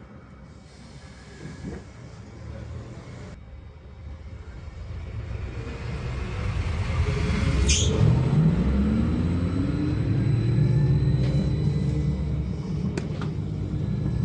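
VMZ-5298.01 trolleybus pulling away from a standstill. Its electric traction drive gives a whine that rises steadily in pitch as the bus gathers speed, over a low running rumble that grows louder. A sharp click comes about halfway through.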